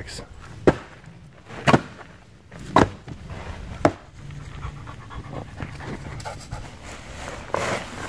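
A dog panting and huffing, with four short, sharp huffs about a second apart in the first half, then quieter.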